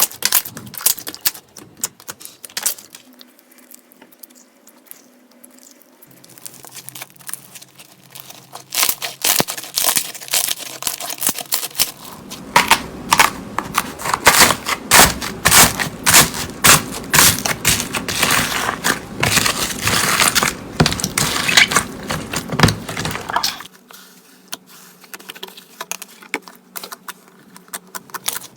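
Slime being pressed and worked by hand, giving runs of sticky clicks, pops and crackles. The clicking is sparse and quieter at first, turns dense and loud from about halfway, then thins out again near the end.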